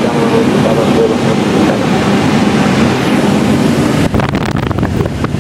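Steady rush of airflow around a glider's cockpit in flight. From about four seconds in, wind buffets the microphone in gusts.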